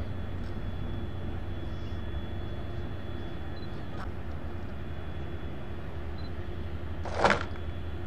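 Steady low rumble of boat engines on the water, with a short loud rush of noise about seven seconds in.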